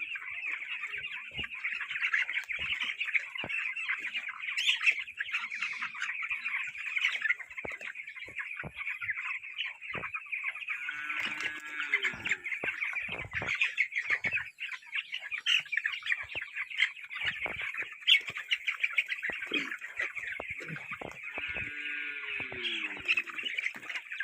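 A large flock of young broiler chickens cheeping in a dense, continuous chorus, with scattered short clicks and knocks. A lower, sliding call stands out about 11 seconds in and again near the end.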